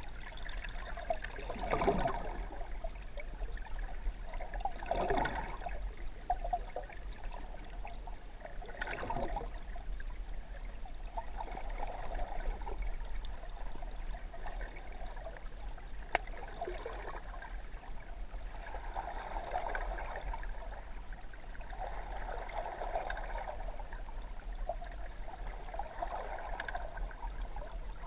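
Water sloshing and gurgling heard through a submerged camera, muffled, in irregular swells.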